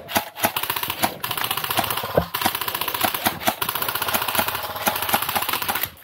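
Airsoft electric gun firing on full auto, a rapid clatter of shots in long bursts with brief breaks, stopping near the end.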